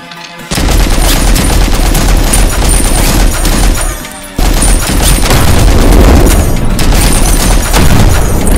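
Rapid machine-gun fire sound effect in two long bursts: the first starts abruptly about half a second in, there is a short break around four seconds in, then the firing resumes.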